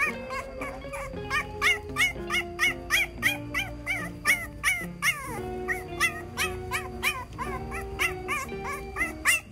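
Background music: a bouncy tune of quick, repeating high notes, about three a second, over long held lower notes.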